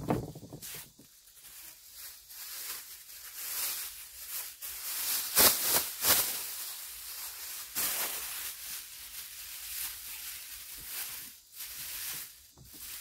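A thin black plastic trash bag rustling and crackling as it is shaken open and worked down over the rim of a plastic trash can, with louder flaps about halfway through. A dull thump right at the start.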